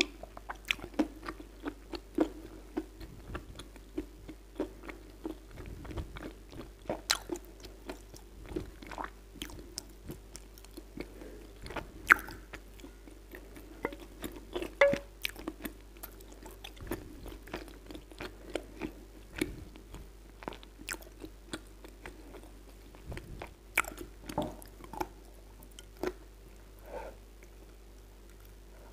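Close-miked biting and chewing of Kyrgyz "red heart" edible clay chunks, wet-crunch style: irregular sharp crunches and clicks, several a second, with louder bites here and there.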